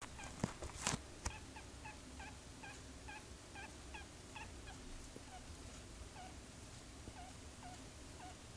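A pet's strange noise: short, high squeaks repeated at about two a second, a little lower and fainter towards the end. A few sharp knocks come in the first second.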